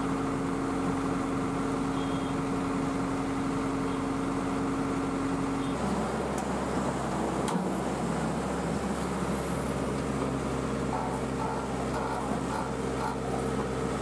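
Backhoe loader's diesel engine running under load as its hydraulic arm scrapes and lifts mud with the bucket; the engine note changes about six seconds in, with a sharp click soon after.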